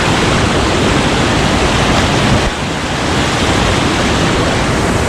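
Waterfall pouring steadily, a loud, even rush of falling water close by.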